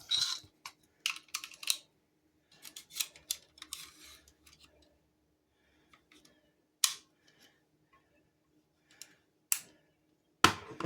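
Clicks, scrapes and rattles of a Hart heavy-duty staple gun being handled as staples are loaded into its tray, with two single sharp clicks in the second half and a loud snap near the end.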